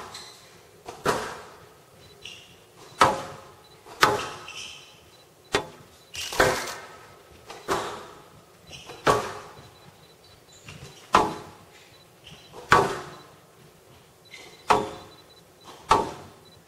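Squash rally: the ball smacking off rackets and the court walls about a dozen times, roughly once a second, each hit ringing briefly in the glass-walled court. Short shoe squeaks come between some of the shots.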